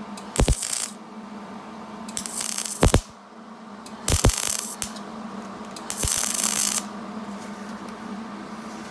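MIG welder arc crackling in four short bursts, each under a second, as small holes in thin sheet metal are filled with quick stitch bursts to avoid blowing through. A steady low hum runs underneath.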